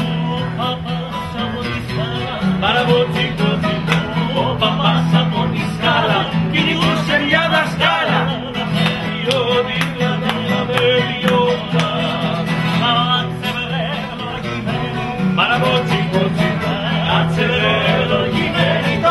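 Traditional Kefalonian kantada: acoustic guitars and mandolins strummed while several men sing together.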